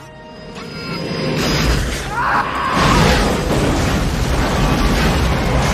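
Film explosion sound effect of a smart bomb blast: a deep rumbling blast that swells from about a second in, peaks near three seconds, and keeps rumbling loudly.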